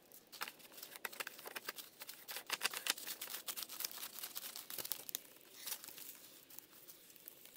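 Plastic nut of a PVC bulkhead fitting being screwed on by hand: a faint run of quick scratching and crinkling clicks as the plastic threads and washer turn against the trough wall.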